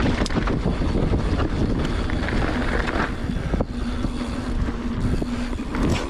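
Wind rushing over the camera microphone on a moving mountain bike, with the tyres rolling over a dirt trail and a few sharp knocks from the bike.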